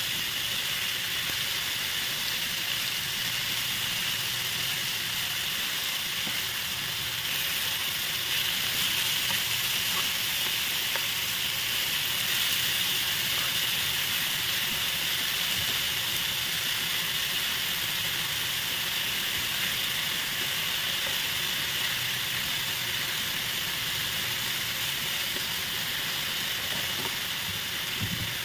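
Marinated thin-sliced beef bulgogi sizzling steadily in a nonstick frying pan as it is stir-fried and turned with tongs.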